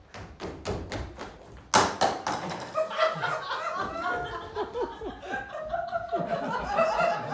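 A quick run of knocks, like hurried footsteps on a stage floor, with one loud thump about two seconds in, followed by an audience laughing.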